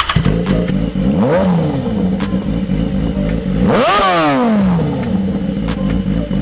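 BMW S1000RR inline-four sportbike with a full racing exhaust catching and settling into a loud idle. It is blipped briefly about a second in, then revved hard, its pitch rising sharply and falling back to idle just before four seconds.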